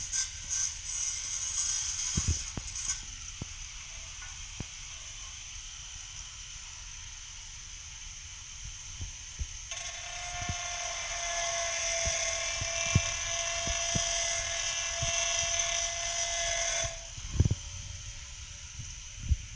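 Small angle grinder cutting a ceramic tile, a steady high whine. It runs loud for the first few seconds, goes quieter for a while, comes back louder with a steady tone about ten seconds in, and cuts off near the end. Light knocks are heard here and there.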